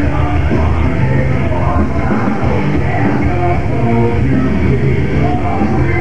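Loud rock music with a singing voice, played through a hall's sound system as a wrestler's entrance music.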